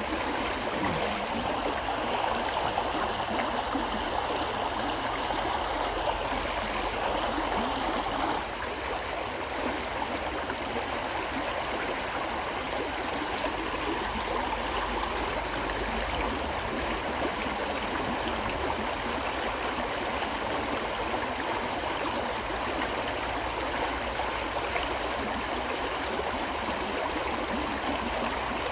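A river flowing steadily: a continuous, even wash of running water.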